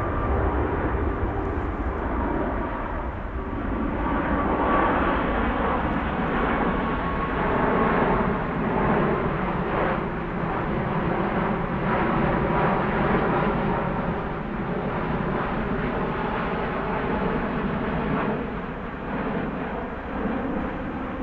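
Airbus A380 jet engines at go-around thrust: a loud, steady jet noise from the airliner climbing away after an aborted landing, easing off slightly near the end.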